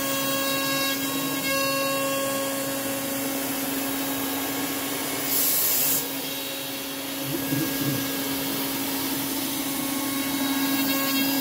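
Home-built PrintNC CNC router's spindle running with a steady tone as a chamfer bit cuts a half-millimetre chamfer along the edges of 17 mm construction plywood, over a constant hiss of spindle air. A brief louder hiss comes about five seconds in.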